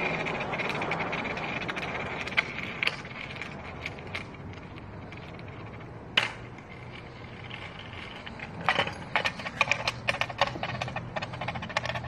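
Skateboard wheels rolling over concrete: a steady rolling rumble with scattered clicks, turning into a dense run of clicks and knocks over the last few seconds.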